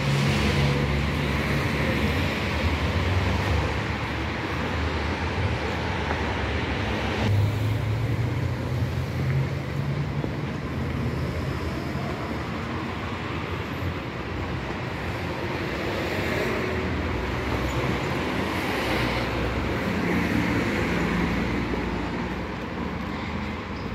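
Road traffic on a city street: car engines and tyres making a steady wash of noise, with vehicles swelling louder now and then as they pass.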